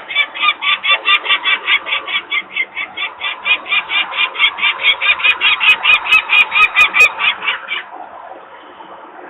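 Adult peregrine falcon giving its harsh, rapid alarm cacking, about six calls a second, which breaks off about eight seconds in. The alarm is raised at workers making noise near the nest.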